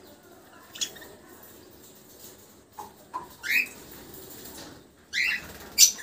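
Budgerigar chicks chirping in the nest box: two short calls that sweep upward in pitch, in the second half, with a few sharp clicks. The loudest click comes just before the end.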